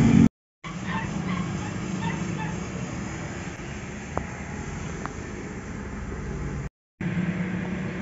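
Ford Ranger engine idling steadily, heard from inside the cab. The sound drops out completely twice, briefly, where the recording is cut.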